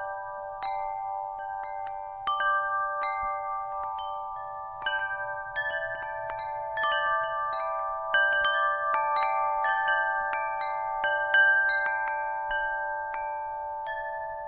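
Wind chimes ringing, struck at irregular moments, with many clear tones overlapping and ringing on.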